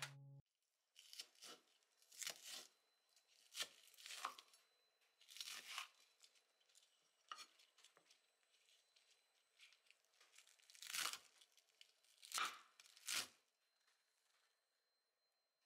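Faint vegetable prep on a cutting board: about a dozen short, irregular scrapes and rustles as chopped green onions and shredded cabbage are handled. The loudest strokes come in a cluster a little past the middle.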